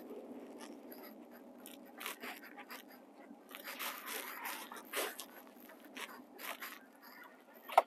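Fabric rustling and scraping close to the phone's microphone in short irregular bursts, over a steady low car-cabin hum, with one brief sharp sound near the end.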